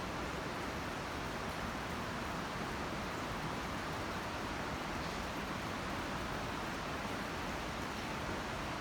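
Steady rush of fast-flowing river water, the flood-swollen Coquihalla River running through its gorge.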